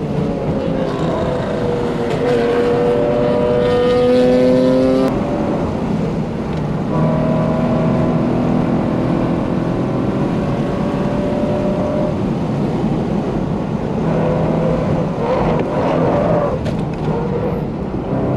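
Subaru BRZ's flat-four engine, breathing through a catless exhaust and aftermarket header, heard inside the cabin. It pulls hard at high revs, its pitch rising for about five seconds, then drops off sharply as the throttle is lifted. It then runs on at lower revs through the corners.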